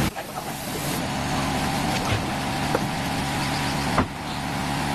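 Car engine running steadily, with a sharp knock about four seconds in.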